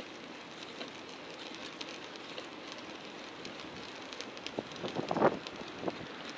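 Bicycle riding along a city street: a steady crackling hiss of tyres on the road, with many small clicks and rattles. A louder clatter comes about five seconds in, like the bike jolting over a bump.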